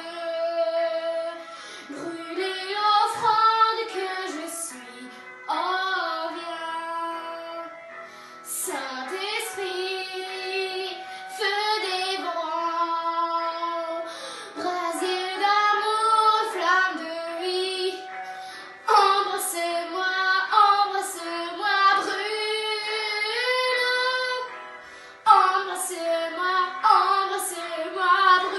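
A young girl singing solo, phrase after phrase, over steady held accompaniment chords.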